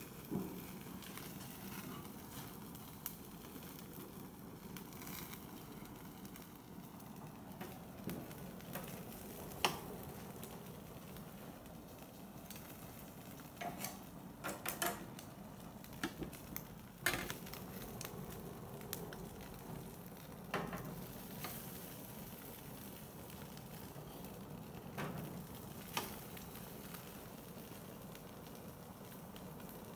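Atlantic salmon kabobs sizzling on a gas grill over flaring flames, a steady faint sizzle. Sharp clicks and clanks of metal tongs against the grill, scattered through it, are the loudest moments.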